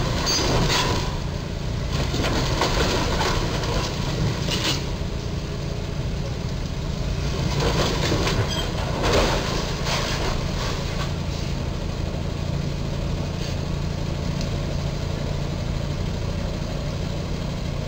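Box truck's engine running as the truck reverses slowly, with several bursts of crunching and scraping in the first half as its torn box roof drags against the bridge's steel crash beam.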